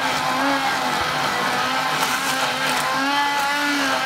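Electric hand blender switching on abruptly and running loud and steady in a bowl of wholewheat flour and milk batter, its motor whine wavering slightly in pitch as the blade works through the mixture.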